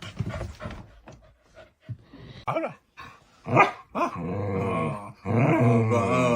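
A dog giving a few short barks, then growling in two long, wavering stretches.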